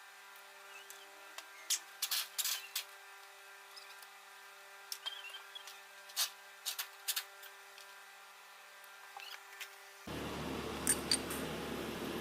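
Scattered sharp metal clinks and clicks of hand tools at work on the car, a few close together about two seconds in and again around six to seven seconds, over a faint steady hum. About ten seconds in, the background switches abruptly to a louder steady noise.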